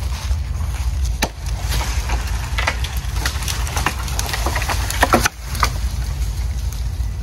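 Axe chopping through a small tree: a sharp strike about a second in, then a run of cracks and snaps of wood as the tree breaks and comes down, the loudest about five seconds in. A steady low wind rumble on the microphone underneath.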